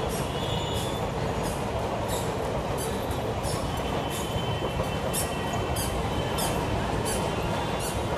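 Train running along the rails: a steady rumble with repeated sharp clicks of the wheels passing over rail joints, and a faint high wheel squeal.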